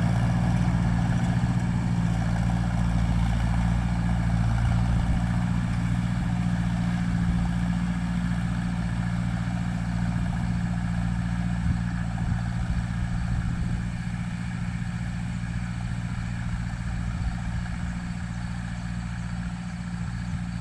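Engine of an earthmoving machine running steadily while it spreads sand, slowly getting a little quieter.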